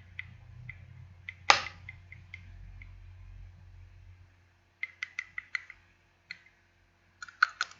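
Kiko lipstick tube being handled: one sharp click about a second and a half in, then quick runs of light taps and clicks on the case later on.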